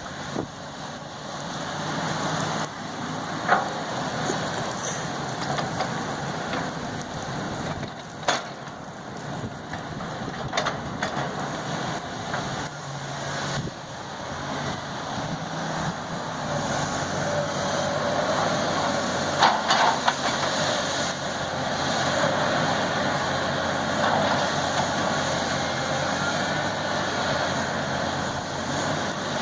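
Backhoe's engine running steadily, with a few sharp knocks now and then.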